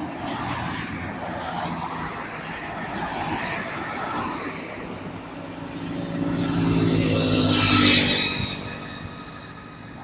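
Road traffic going by on a multi-lane road, with one motor vehicle passing close: its engine grows louder from about six seconds in, peaks near eight seconds, then fades.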